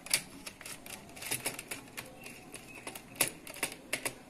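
Scattered sharp clicks and small scrapes of a screwdriver working a terminal screw on a plastic modular switchboard socket while a wire is fitted.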